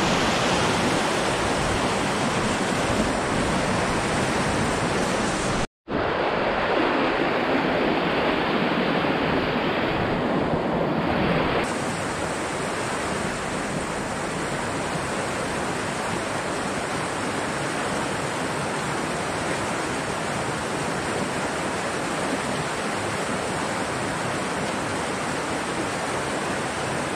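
A mountain stream's water rushing steadily. It cuts out for an instant about six seconds in and runs a little quieter from about twelve seconds on.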